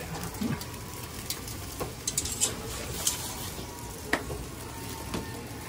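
Meat sizzling on a charcoal barbecue grill, with scattered small crackles and pops.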